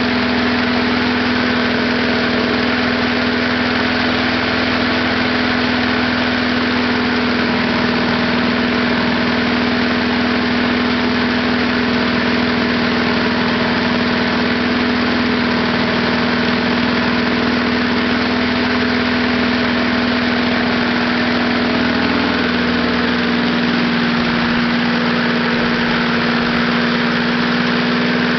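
Small air-cooled single-cylinder lawnmower engine running steadily at idle, fed on gasoline vapor pulled through a wick instead of a carburetor's liquid fuel; its note shifts slightly near the end.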